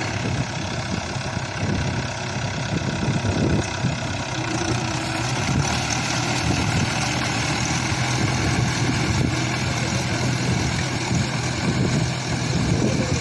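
Mahindra 575 DI tractor's four-cylinder diesel engine running steadily under load as it drives a rotavator through wet mud.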